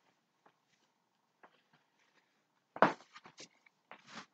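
Clothing rustling and body movement close to the microphone: a few short scuffs and brushes, the loudest about three seconds in, in an otherwise quiet small room.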